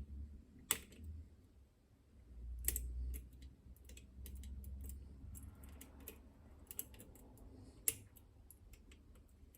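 Lock picks working the levers inside a Chubb Detector lever lock held under tension: scattered small metallic clicks and ticks, with sharper clicks about a second in, near three seconds and near eight seconds, over low handling bumps.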